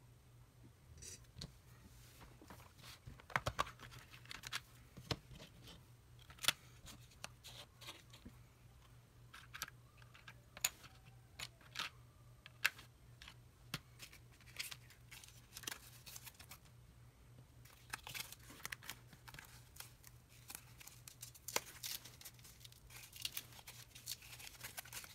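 Small electronic parts, plastic bags and a clear plastic box being handled on a workbench: irregular clicks, taps and crinkles, more frequent in the last few seconds, over a steady low hum.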